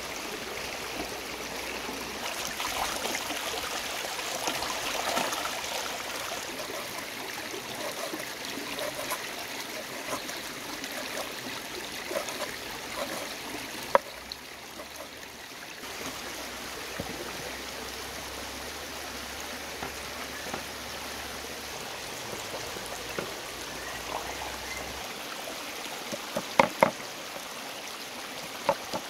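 Shallow rocky stream trickling and babbling steadily. A meat cleaver knocks on a wooden chopping board as pork fat is cut: once about halfway through, then three or four quick chops near the end.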